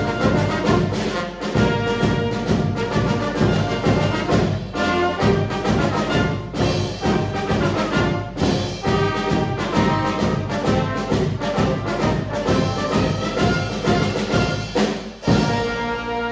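Cheering-squad brass band of trumpets, saxophones and sousaphone with drums playing a fast, driving tune with a steady beat, ending on a strong accented hit and a held final chord near the end.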